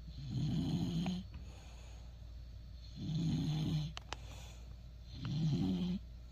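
English Bulldog snoring in a steady rhythm: three low, rasping snores about a second long each, roughly two and a half seconds apart, with quieter breathing between.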